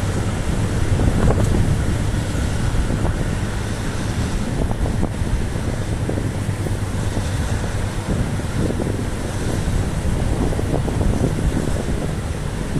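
Loaded freight train wagons rolling past, a steady low rumble with scattered short clicks and knocks from the wheels and rails, under heavy wind noise on the microphone.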